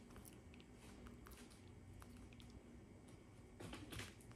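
Monkey grooming a person's hair: faint scattered clicks and crackles of picking through the hair close to the microphone, with a brief louder rustling near the end.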